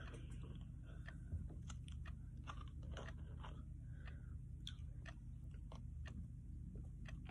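Eating ice cream from a cup with a plastic spoon, close to the microphone: chewing and mouth sounds with scattered sharp clicks of the spoon and cup, over a steady low hum.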